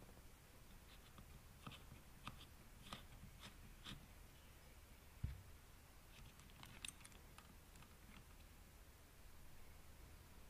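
Faint scattered clicks and light scrapes of an Allen key and small metal parts being worked loose on a trolling motor's head, with one dull low bump about five seconds in.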